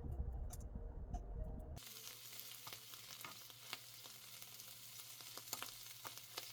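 Mala fried rice sizzling in a frying pan, an even hiss dotted with crackles and clicks. It starts suddenly just under two seconds in, after a low rumble with a few light clicks.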